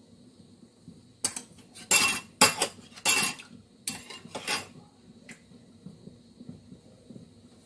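A metal fork stirring melted margarine in a small glass bowl, clinking and scraping against the glass in a quick run of strokes. The strokes start about a second in and stop just past halfway.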